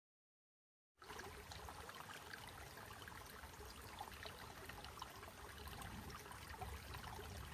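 A small stream trickling and babbling, faint and steady, coming in abruptly about a second in.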